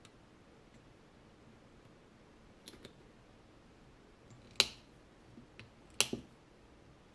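Side cutters snipping off the excess leads of newly soldered electrolytic capacitors: a few sharp clicks, the loudest about halfway through and another strong one about a second and a half later.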